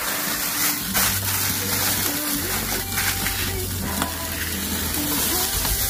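Thick T-bone steaks sizzling over hot charcoal on an open kettle grill, a steady hiss of fat frying on the grate with a few sharp crackles as flames flare up. Faint background music plays underneath.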